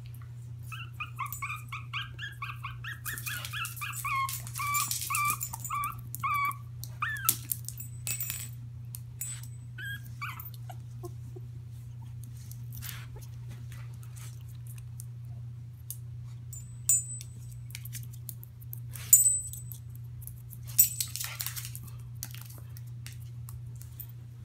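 A small dog whimpering in a run of short, high, wavering whines for several seconds, with a couple more about ten seconds in. Later come a few sharp knocks and rustles over a steady low hum.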